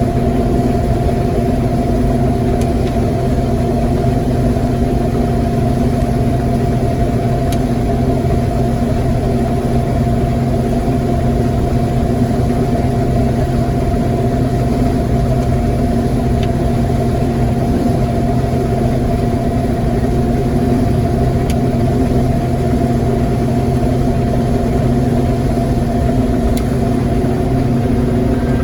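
Farm machinery running steadily: a constant engine drone with a steady pitched hum that holds the same pitch throughout.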